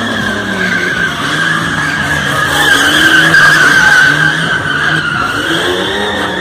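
A Volkswagen sedan's tyres squealing as it drifts and spins on concrete, with its engine revving and easing underneath. The squeal wavers and is loudest from about two and a half to four seconds in.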